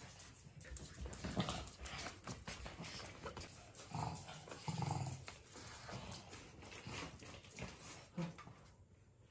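Two small dogs, a pug and a Pekingese, moving about on a hard floor: many quick ticks of claws and feet, with a few short low dog noises around the middle. It quietens near the end.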